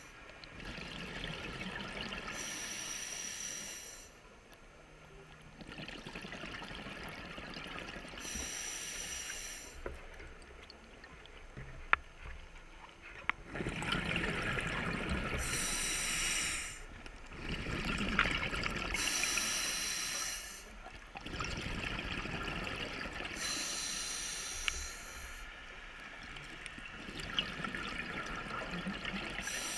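Scuba diver breathing underwater through a regulator. A hissing inhale comes every four to six seconds, each followed by a rush of bubbling exhaust bubbles.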